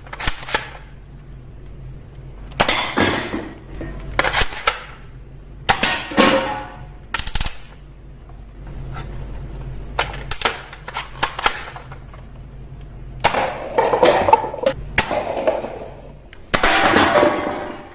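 Toy gun being fired in a series of short bursts of clicking, rattling shots separated by brief pauses.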